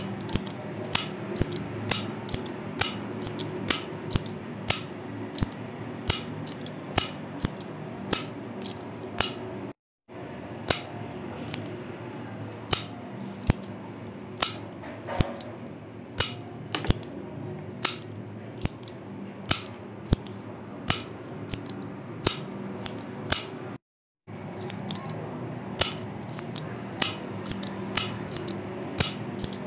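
A retractable pen's push button being clicked over and over, about two sharp clicks a second, over a steady low hum of background noise. The sound cuts out briefly twice.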